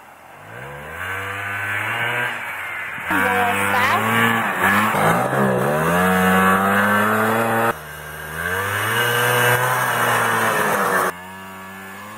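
Vintage Yamaha 250 snowmobile's two-stroke engine revving hard as the sled pulls away, its pitch climbing and then holding high. The sound breaks off abruptly several times where clips are spliced.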